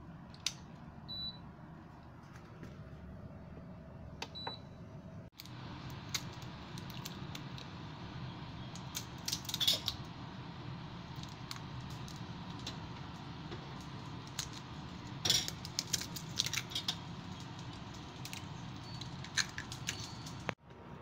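An induction cooktop gives two short beeps as its controls are pressed. Then eggs are tapped and cracked against a stainless steel cup, with sharp clicks and metal clinks over a steady low hum.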